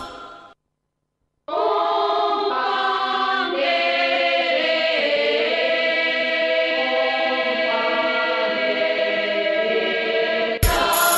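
Choral music: after a second of silence, a choir sings long, held chords. Near the end a different music track with a steady beat cuts in.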